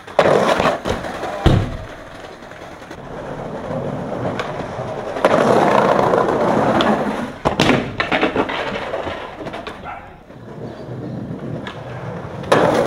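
Skateboard: sharp clacks and thuds of the board hitting the wall and ground, with its wheels rolling over tiled pavement between them. The rolling is loudest from about five seconds in, and there are further impacts about seven and a half seconds in and near the end.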